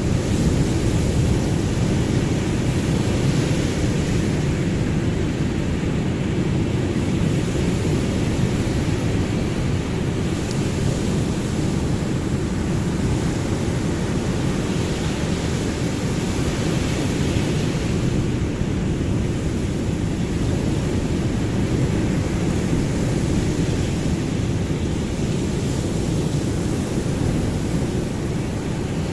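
Ocean surf: a steady, deep rush of waves, with the hiss swelling softly every several seconds as waves break.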